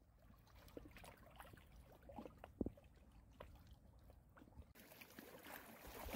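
Quiet small waves lapping and splashing irregularly against shoreline rocks, stirred up by the wind. Near the end, louder choppy river water and wind on the microphone come in, a sound like surf.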